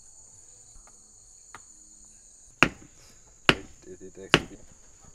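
Three sharp knocks, a little under a second apart, like chopping or hammering, over a steady high chirring of crickets.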